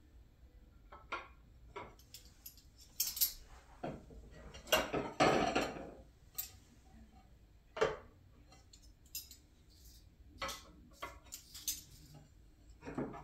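Tableware being handled and set down on a wooden dining table: scattered clinks and knocks of plates, with a longer clatter about five seconds in.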